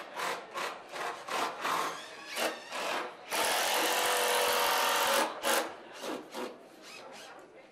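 Cordless drill running steadily for about two seconds in the middle, driving a screw into a wooden stair rail. Short, uneven scraping strokes of wood on wood come before and after it.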